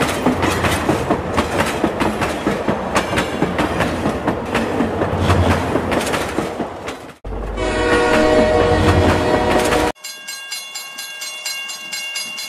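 Toy train set's locomotive and wagons clattering over plastic track, a fast rattle of wheel clicks. About seven seconds in it cuts suddenly to a louder horn-like electronic tone for a couple of seconds, then to a quieter, regularly pulsing electronic sound.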